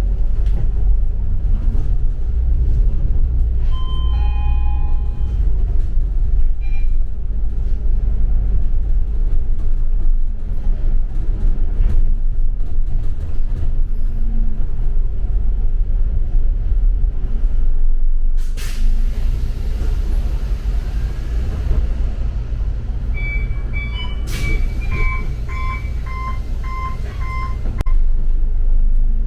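Inside a moving double-decker city bus: steady low engine and road rumble. About two-thirds of the way through comes a long hiss of released air, then a sharp click and a run of repeated beeps near the end.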